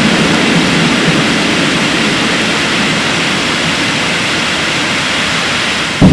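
Steady rushing roar of an oil well blowout, fading slightly, broken off near the end by a sudden loud thump.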